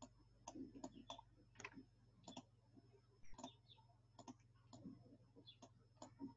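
Faint, irregular clicks of a computer mouse, a dozen or so scattered across a few seconds, over a low steady hum.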